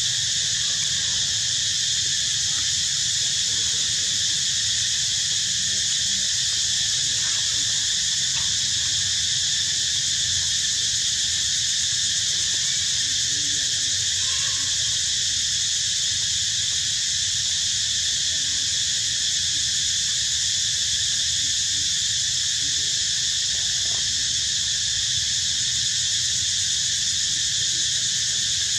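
Steady, high-pitched insect chorus, several layered tones running without a break, over a low rumble.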